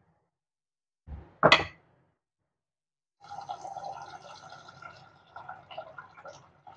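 A loud clunk about a second and a half in. From about three seconds on, a stream of water runs steadily into a pot of uncooked rice as the rice is rinsed.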